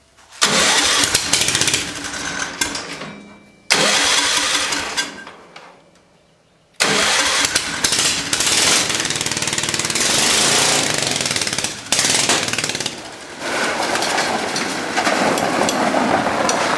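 10 hp Tecumseh vertical-shaft lawnmower engine on a go-kart starting up and running. It fades away between about four and six seconds in, then starts again and runs steadily.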